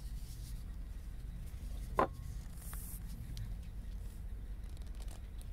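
Quiet handling sounds of a plastic squeeze bottle of school glue being opened and squeezed over felt pieces, with one short sharp click about two seconds in, over a steady low room hum.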